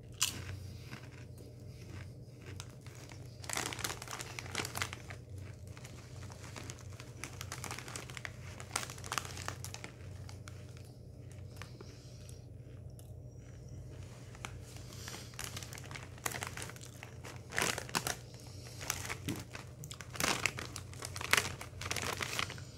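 Foil potato-chip bag (Lay's Wavy) crinkling as a hand rummages in it and lifts it, in several bouts with the loudest near the end, with crunching of chips being eaten in between. A steady low hum runs underneath.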